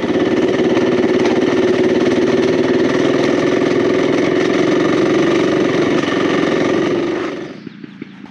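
Motorcycle engine running steadily, then dying away about seven and a half seconds in.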